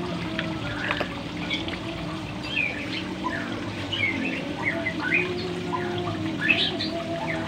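Pond water splashing and trickling as a crowd of koi churn at the surface for food pellets, with birds chirping repeatedly over it.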